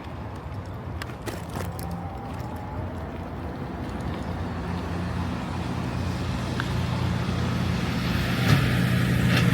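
Road traffic: a motor vehicle's low engine rumble growing steadily louder as it draws near.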